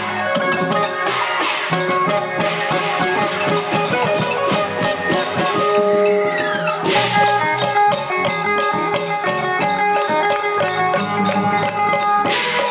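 Northeastern Thai (Isan) folk ensemble playing: a fast, steady drum and percussion beat under held melodic notes, with one falling swoop about halfway through.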